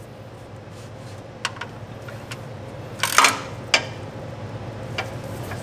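A few light metal clicks and a short clatter of quick clicks about three seconds in, from a socket extension and ratchet being fitted onto the oil filter housing's drain end cap, over a steady low hum.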